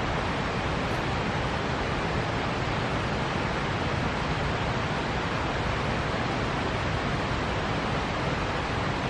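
Steady rush of fast-flowing creek water, an even unbroken hiss and roar with no separate sounds in it.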